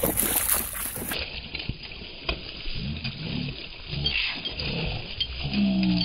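Creek water splashing and churning as animals move through the shallows, with a dog whining several times in short cries, the longest near the end.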